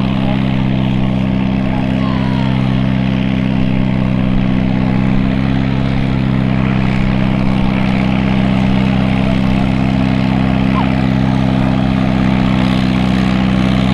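Vintage Farmall tractor's four-cylinder engine working hard at steady revs, hauling a weight-transfer pulling sled at a slow crawl. The engine note holds steady with no revving up or down.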